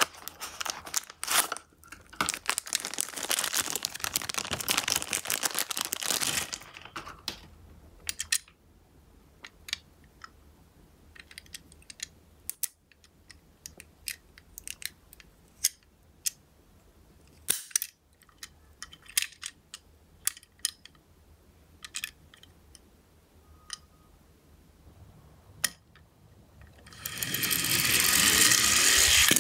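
A Tomica die-cast Nissan NV350 Caravan ambulance toy being unboxed and handled: rustling and scraping of its cardboard box for the first several seconds, then scattered small clicks as the metal car is turned in the fingers. Near the end the toy rolls down a slope with a steady rolling noise of its small wheels, the loudest sound of all.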